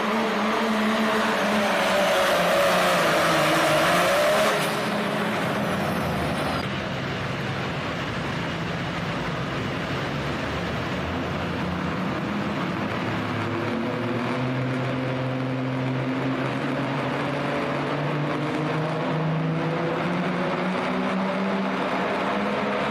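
Diesel pulling truck's engine running hard under load through a sled pull, its pitch shifting up and down. It is loudest at first and drops a little about four and a half seconds in.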